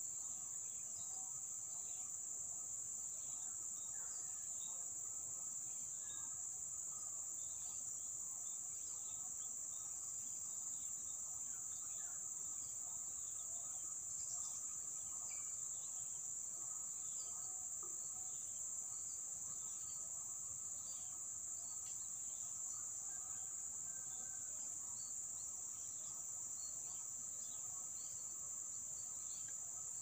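Steady high-pitched drone of insects with no break, and many faint short bird chirps scattered through it.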